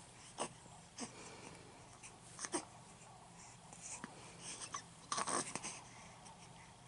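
Faint small noises from four-week-old twin babies: short grunts and wheezy breaths, the loudest a quick cluster about five seconds in.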